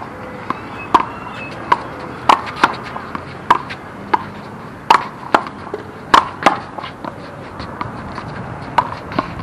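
Small rubber handball being slapped by hand and bouncing off a concrete wall and the court: irregular sharp smacks, one or two a second, each with a short hollow ping.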